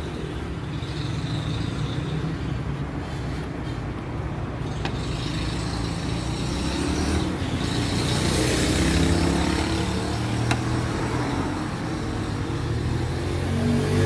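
Steady low rumble of a motor vehicle engine running, growing louder in the middle and easing off again. Two faint clicks.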